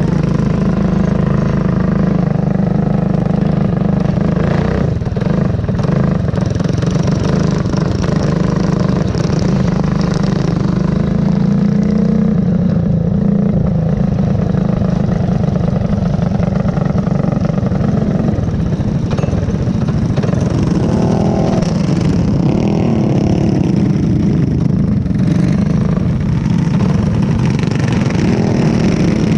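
Go-kart engine running at racing speed, heard from onboard the kart, with other karts' engines around it. It runs steadily, with a few rises and falls in pitch about twenty seconds in.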